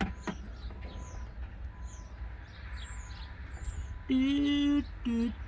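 Small birds chirping repeatedly, short high falling chirps over a low steady outdoor rumble. About four seconds in, a man's voice makes a loud wordless held note, then a shorter one.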